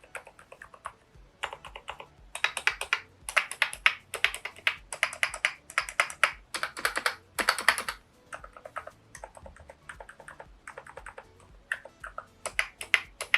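Keychron K10 Pro full-size mechanical keyboard with factory-lubricated Keychron K Pro brown switches and stabilizers being typed on. Quick runs of keystrokes are densest through the middle, then slower, more spaced single presses follow, with a brief quicker run near the end.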